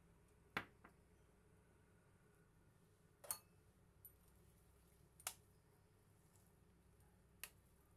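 A metal spoon knocking against the rim and sides of a stainless steel pot while stirring shrimp into soup: four sharp clinks a second or two apart and one fainter one, over near silence.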